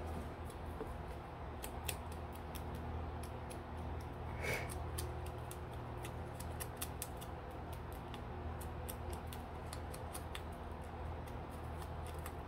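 Foam ink blending tool rubbed and dabbed against the edges of a paper label and an ink pad, giving a run of light, scratchy ticks over a steady low hum.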